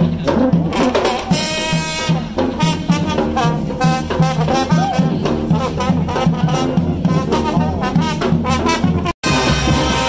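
Live street brass band playing: a sousaphone pulses a steady bass line under the brighter horn parts. The sound drops out for an instant near the end.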